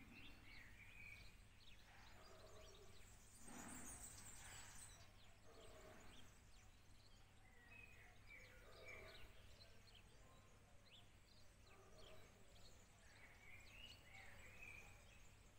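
Near silence: faint garden ambience with birds chirping now and then, and a brief faint rush of noise about four seconds in.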